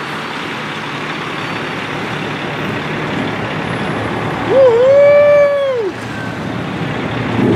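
Steady vehicle and engine noise, and about halfway through a man's long held cheering shout lasting about a second and a half.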